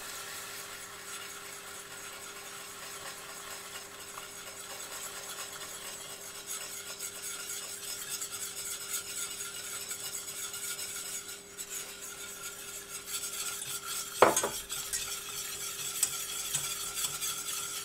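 Metal whisk stirring in a pot of hot sugar caramel as heavy cream is poured in, with a steady sizzling hiss from the bubbling caramel and small scraping ticks of the whisk. About fourteen seconds in, the whisk gives one sharp clink against the pot. A faint steady hum runs underneath.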